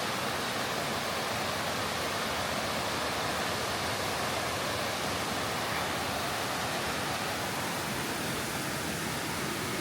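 Rushing water of a waterfall, a steady even hiss with no breaks.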